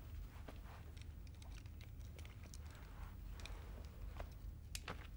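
Quiet room tone: a low steady hum with scattered faint clicks and rustles of handling.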